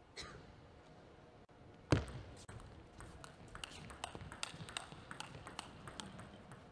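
Table tennis rally: the ball clicks sharply back and forth off the bats and table, several times a second, after a loud thump about two seconds in.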